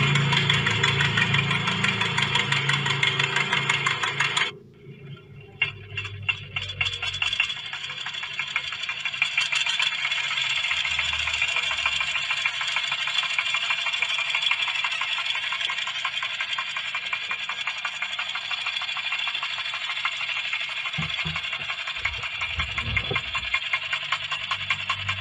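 A motor-driven machine running with a fast, even rattle. It cuts out suddenly about four and a half seconds in, sputters back over the next few seconds and then runs steadily.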